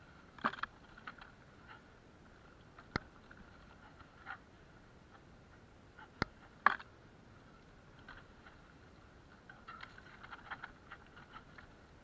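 A mountain bike rattling over a rough dirt trail: scattered sharp clicks and knocks from the bike and camera mount, loudest about half a second in and again past the middle, with a run of small rattles near the end.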